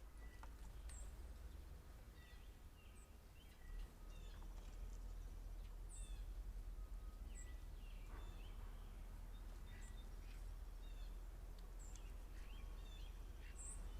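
Several birds giving short, scattered chirps and whistles, over a low steady rumble.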